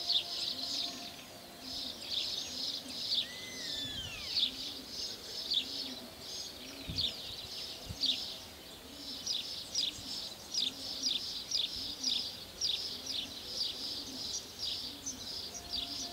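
Birds singing: rapid, repeated high chirps go on throughout, with a gliding whistled call about three seconds in.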